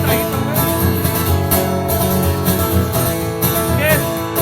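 Live band music between sung lines: strummed guitars over bass and drums with a steady beat.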